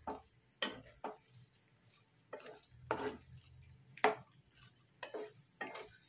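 Wooden spatula stirring whole shell-on shrimp in a frying pan of buttery sauce: a series of irregular scrapes and knocks against the pan and shells, a little under two a second.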